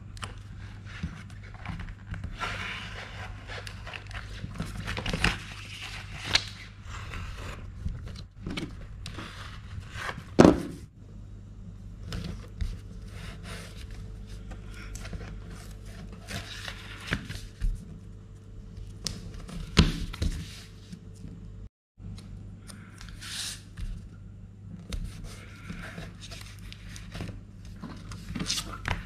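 Hand-work on leather and paper on a cutting mat: a craft knife scraping through leather, paper and tape rustling, and scattered knocks and thumps as pieces are handled, over a steady low hum.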